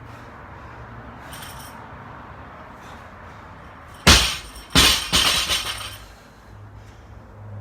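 A loaded barbell dropped to the floor, landing with a heavy clang and bouncing once with a rattle of plates and collars. Heavy breathing comes before it.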